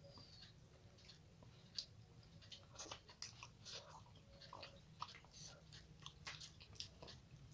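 Faint, close-up chewing of fish head, with many small wet mouth clicks and smacks scattered throughout.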